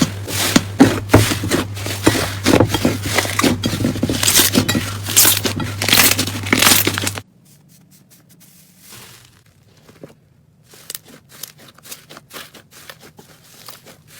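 Slime being squeezed and worked by hand, with dense sticky crackling and popping over a steady low hum. About halfway through it cuts to a quieter clip of sparser pops and clicks.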